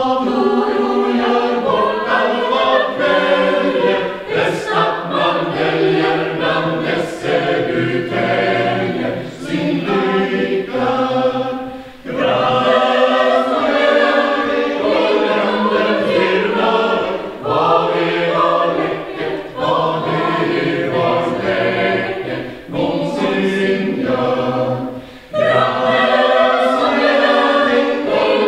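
Mixed SATB chamber choir singing a cappella in Swedish, in long phrases with brief breaks about twelve and twenty-five seconds in.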